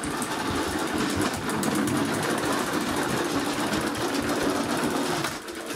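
Plastic wheels of a toy ambulance rolling fast across a hardwood floor: a steady rattling noise that stops near the end.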